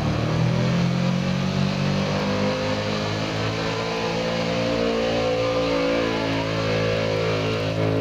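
Stock pickup truck's engine held at high revs under heavy load while pulling a weight-transfer sled down a dirt track. The pitch rises a little midway and eases off near the end.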